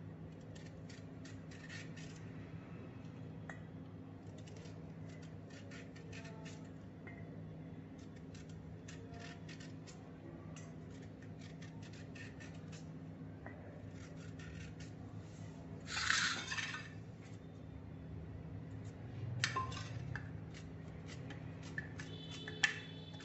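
A small knife scraping and clicking faintly against the skin of raw green bananas as they are peeled by hand over a steel bowl. There is a louder scraping rush about 16 seconds in and another around 20 seconds, and a sharp click near the end. A steady low hum runs underneath.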